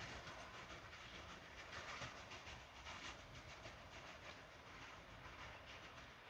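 Faint sound of a train rolling on the track, its wheels clicking over the rail joints, slowly fading.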